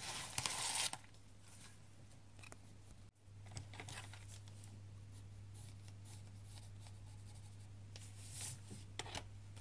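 Paper handled with a short rustle in the first second, then the faint scratching of a heart being drawn on paper, over a steady low hum. The sound drops out for an instant about three seconds in.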